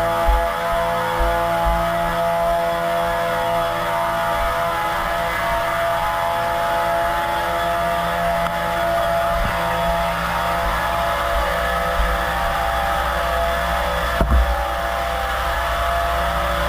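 A vehicle engine runs steadily, with a constant hum of several steady tones over a low rumble. A single short knock comes about 14 seconds in.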